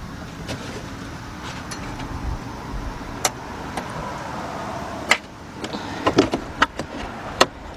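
Hands working a plastic fender liner and a wiring connector in a car's wheel well: scattered sharp plastic clicks and knocks over steady background noise, coming thick and fast in the last few seconds.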